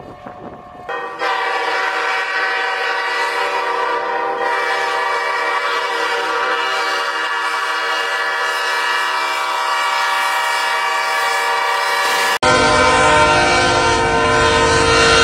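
Diesel locomotive air horn sounding one long, steady blast of about ten seconds. It cuts off abruptly and a second locomotive horn sounds over a low rumble.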